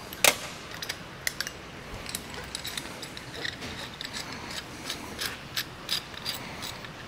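Light, scattered clicks and taps of small hard parts being handled against a stainless steel workbench and a shock absorber, with one sharper knock about a quarter second in.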